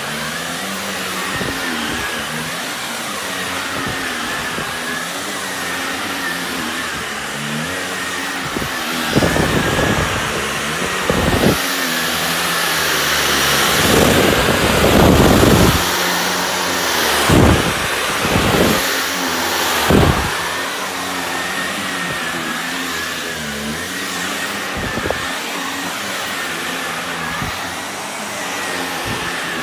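Shark upright vacuum cleaner running over a rug: a steady motor hum with a whine. Between about 9 and 20 seconds in come several louder rushing bursts.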